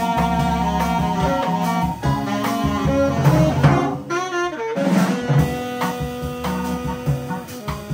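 Live jazz band playing: a saxophone melody over a drum kit and Hammond organ.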